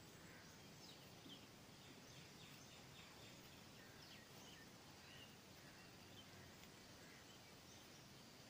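Near silence: faint outdoor background hiss with occasional faint bird chirps and a short faint trill.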